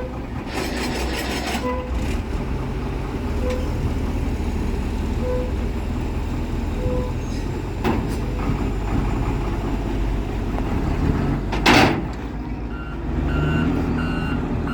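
Dump truck's engine running low and steady, with its reversing beeper sounding a short beep about every second and a half to two seconds; the beeps fade out about halfway through. About 12 s in there is a short, loud hiss. Near the end a faster, higher-pitched beep takes over.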